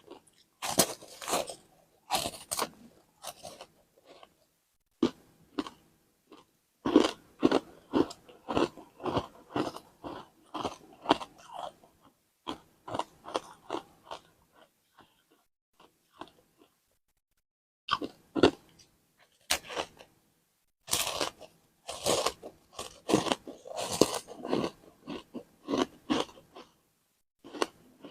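Frozen matcha ice being bitten and chewed close to the microphone: clusters of crisp crunches and cracks, each bite followed by a run of chews, with brief pauses between mouthfuls.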